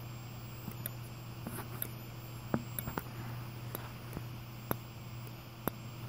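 Wheelock remote strobe flashing, a sharp click at each flash about once a second, with the faint high-pitched whine of its capacitor recharging between flashes.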